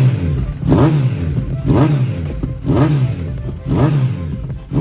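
Kawasaki superbike engine, freshly cold-started, being revved in short throttle blips about once a second; each blip rises in pitch and falls back to a steady idle.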